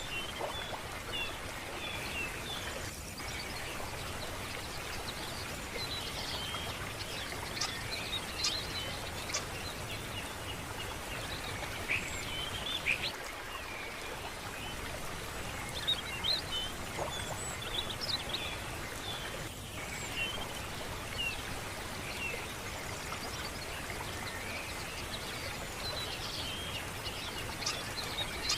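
Birds chirping and calling in many short notes over a steady rush of running water.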